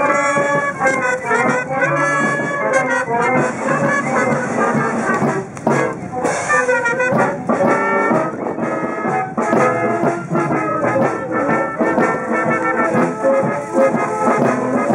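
Brass band playing a march.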